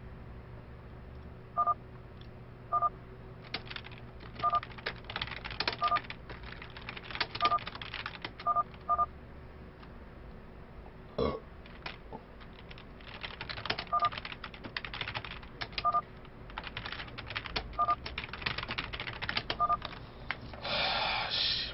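Computer keyboard typing in quick bursts of clicks, with a short two-tone StarCraft chat beep about a dozen times as in-game chat messages arrive.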